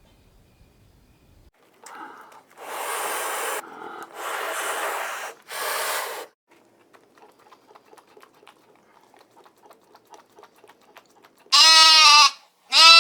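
Three breathy, hiss-like bursts of noise, each about a second long, followed by faint clicking. Near the end an animal bleats twice in a wavering, pitched call, the second bleat louder and running on.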